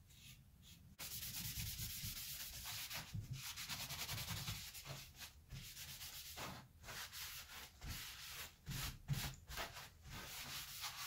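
Cloth rag rubbing back and forth over a wooden sign, wiping in wood stain: a steady scrubbing hiss from about a second in, breaking into separate strokes in the second half.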